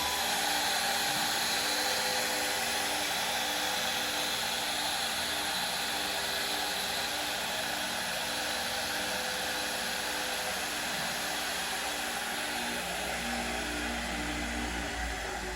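DIY CNC router's spindle running steadily while milling aluminium composite (ACM) panel, a high-pitched whine with a faint repeating pulse underneath. A low hum joins near the end.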